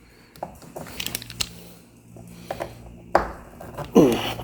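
Scattered light clicks and knocks from handling a power drill and screws at a door strike plate, with a sharper click about three seconds in and a brief falling whine near the end.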